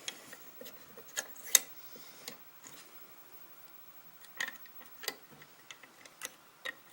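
Irregular small metallic clicks and taps as a Kwikset pin-tumbler lock is handled and worked with a tension wrench and pick. The sharpest click comes about one and a half seconds in, and a run of clicks comes in the second half.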